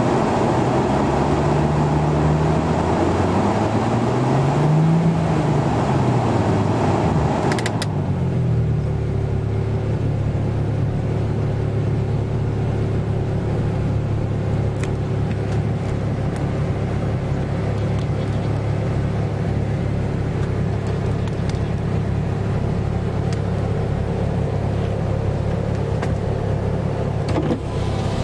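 Cabin sound of a Mk3 Golf VR6 with a 24-valve VR6 engine, driving at low revs. For the first eight seconds the engine note rises and falls under a rushing road noise. After a click the rush drops away and the engine holds a steady low drone.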